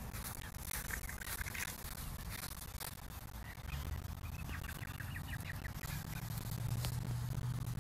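Faint outdoor bird calls, including a quick chattering run of short high notes about five seconds in, over a low steady hum that comes in midway and grows louder near the end.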